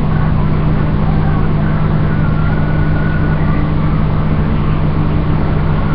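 Steady low hum of a running motor or appliance, even and unchanging throughout.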